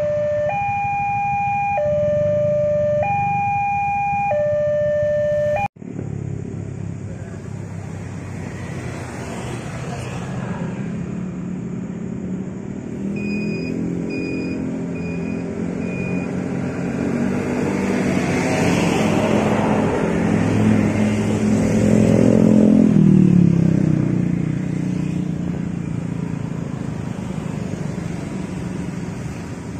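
Railway level-crossing warning bell sounding its alternating two-tone signal, about a second per tone, until a sudden cut. After the cut comes a steady engine rumble that swells and is loudest about three quarters of the way through, as a diesel train approaches along the tracks.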